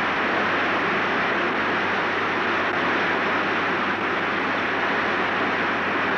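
Rushing water: a steady, loud, even rush with no change in it.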